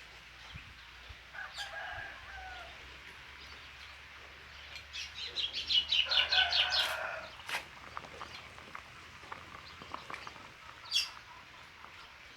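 Chickens calling: a short call about two seconds in, then a loud run of rapid, repeated calls from about five to seven seconds in, with a few scattered knocks.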